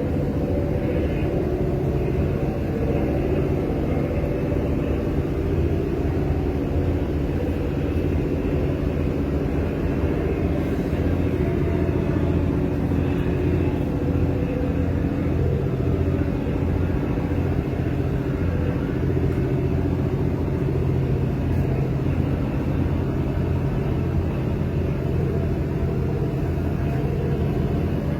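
Steady low engine rumble that runs on evenly without change.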